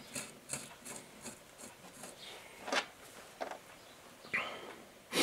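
Light metallic clicks and scraping as bolts fitted with new lock washers are handled and threaded by hand into a Willys steering knuckle's bottom bearing cap. A quick run of faint ticks at first, then a few sharper single clicks.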